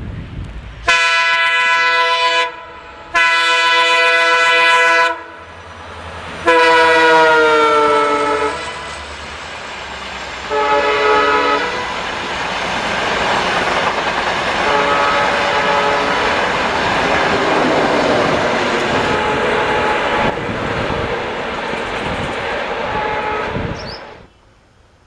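Indian Railways diesel locomotive sounding its horn in three long blasts, the third falling in pitch as the train passes, then one shorter blast. The train's running noise follows as it goes by and stops suddenly near the end.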